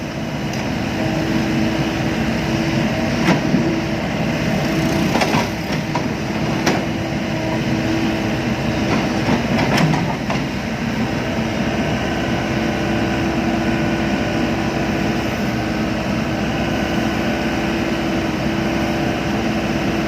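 Excavator engine running steadily with a constant hum. Four sharp cracks or knocks come in the first half, about 3, 5, 7 and 10 seconds in.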